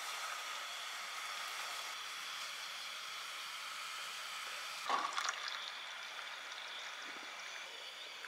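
Steady rushing hiss of running water, with a short knock and a few light clicks about five seconds in.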